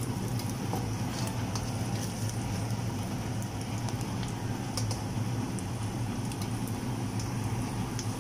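Eggs frying in hot oil in a pan: a steady sizzle with scattered small pops and spatters, over a low steady hum.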